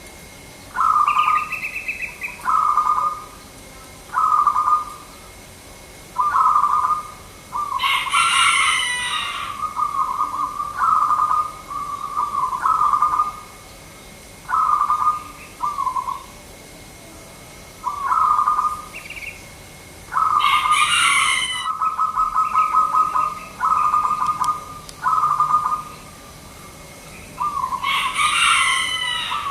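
Zebra dove cooing: short trilled coos repeated about every one to two seconds. Three louder, harsher calls reaching much higher in pitch break in about eight seconds in, about twenty seconds in, and near the end.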